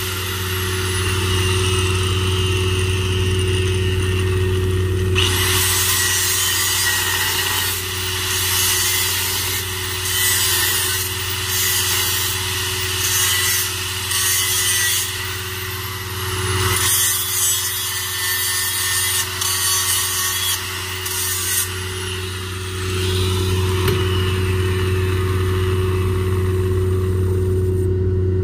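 Metalworking on a stainless steel pipe joint: a harsh rasping hiss that starts and stops in spells of about a second from about five to twenty-two seconds in, over a steady low machine hum.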